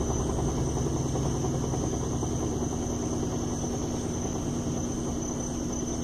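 Electrolux LT12F top-load washing machine in its spin cycle: a steady hum and whir of the spinning basket, easing slightly as it coasts. The motor has just cut out after a spin-up ramp; it switches on and off this way as the machine works up to full spin, which the owner calls normal.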